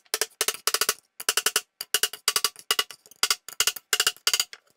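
A small brass mallet tapping repeatedly on a wooden block, each blow a sharp knock with a short ring, about four or five blows a second in quick runs. It is driving the dovetailed case joint home for a dry test fit.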